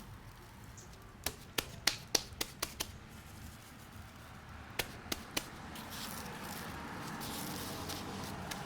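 A series of sharp taps, about seven in quick succession, then three more a couple of seconds later; a steady hiss rises toward the end.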